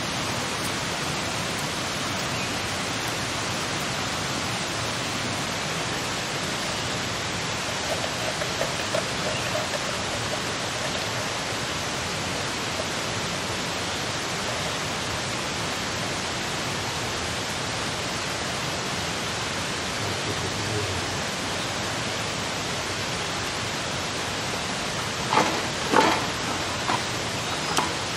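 A steady rushing hiss throughout, with a cluster of sharp knocks near the end from a wooden stick striking a metal cooking pot and a bamboo tube as meat is packed into the tube.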